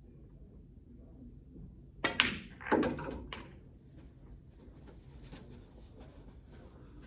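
A snooker shot: sharp clicks of cue tip and balls about two seconds in, a heavier knock just after, then a few lighter clicks as the balls run on.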